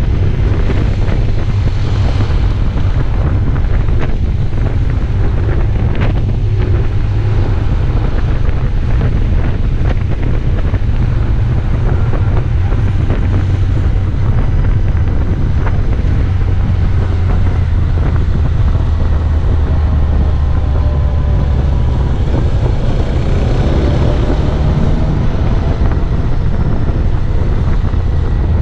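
Heavy wind noise on the microphone of a camera moving at road speed, over a steady low engine drone. In the second half, a few faint rising and falling tones come through.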